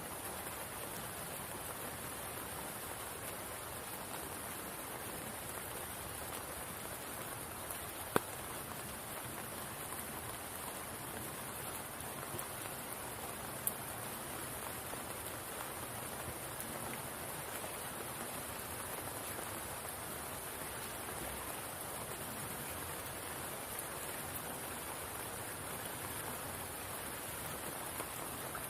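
Rain falling steadily on a spring pool: an even hiss of drops on water, with a sharp single tick about eight seconds in and a fainter one a few seconds later.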